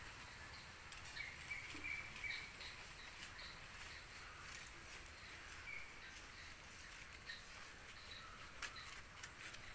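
Faint outdoor ambience: a steady, high-pitched insect trill with a few soft bird chirps, and a few faint clicks near the end.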